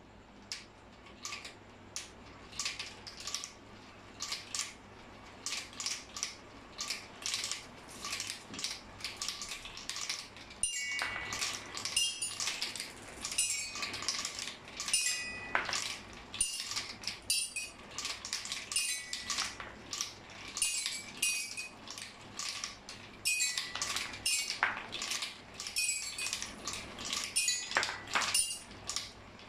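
Marbles rolling and dropping through a pipe marble run, a rapid irregular stream of clicks and knocks. From about ten seconds in, marbles also strike the bars of a toy xylophone, ringing short pitched notes in among the clatter.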